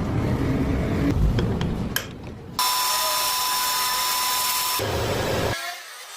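Metal lathe machining brass. Low rumbling machine noise comes first; about two and a half seconds in it switches abruptly to a steady, shrill, hissing whine that stops suddenly near the end.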